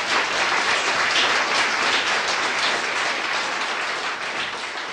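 Audience applauding, the clapping slowly dying away near the end.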